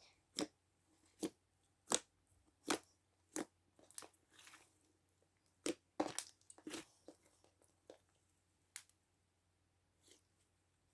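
Stiff slime being squeezed and kneaded by hand with cream worked into it, giving sharp wet clicks and pops, first evenly about once every second, then a quicker cluster of pops midway.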